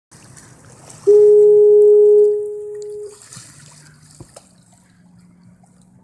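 Fog horn sounding one long, steady, loud blast of about two seconds, dying away about a second after it drops off. Water splashes and laps faintly beneath it.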